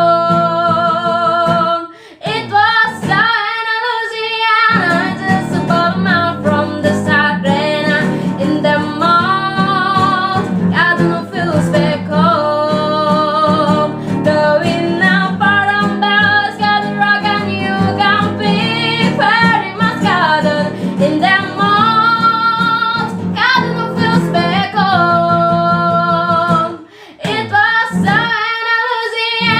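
A young girl singing a song with vibrato on her held notes, accompanied by acoustic guitar. The music drops out briefly twice, about two seconds in and near the end.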